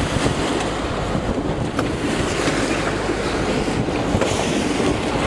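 Loud, steady rush of wind and sea around a Westsail 32 sailboat under way offshore, heard from inside the cabin.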